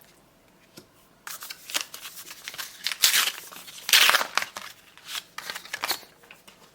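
A foil booster pack wrapper being handled and opened, a run of crinkling, scratchy rustles that starts about a second in and is loudest around three and four seconds in.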